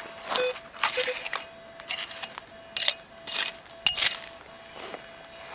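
Hand pick striking and scraping into rocky, gravelly soil, about seven sharp strokes, while digging out a metal detector target. Two short low beeps from the Minelab Equinox 800 metal detector come about half a second and a second in.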